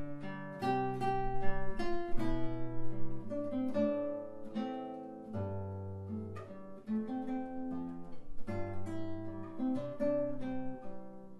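Solo acoustic guitar playing an instrumental melody in picked single notes over low bass notes.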